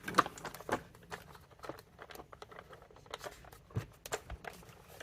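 Hard plastic parts of a Dyson cleaner head clicking and knocking as a cover is wiggled back into place: a string of irregular small clicks and taps.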